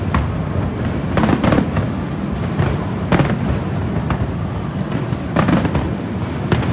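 Distant aerial firework shells bursting: sharp cracks and booms at irregular intervals, with a quick cluster about a second in and another about five seconds in, over a steady low background rumble.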